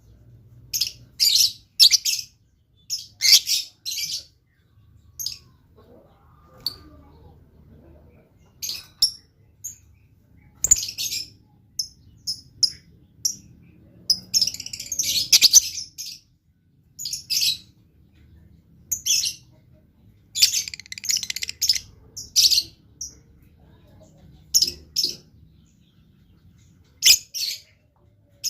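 Lovebird chirping and twittering in rapid, shrill bursts that come in clusters with short pauses between them.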